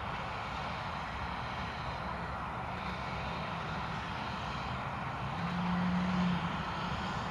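Steam locomotive hauling a passenger train, heard from a distance as a steady rumble while it approaches. A low steady hum swells for about a second near the end.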